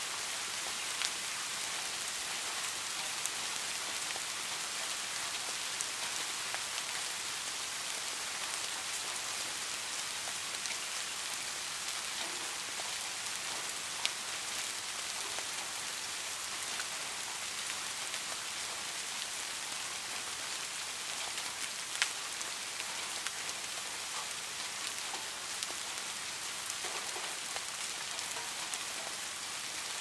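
Steady rain falling on a roof, an even hiss with scattered sharper drop taps, the loudest about halfway through and again about two-thirds of the way in.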